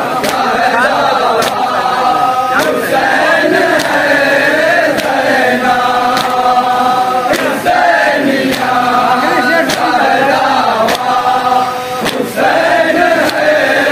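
A group of men chanting a noha in unison, with hand strikes on the chest (matam) keeping time about once a second.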